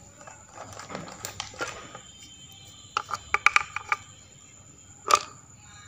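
Sharp clicks and clinks of small hard objects knocking together, with a short ring after each: scattered ones at first, a quick run of about seven a little past the middle, and one louder clink near the end.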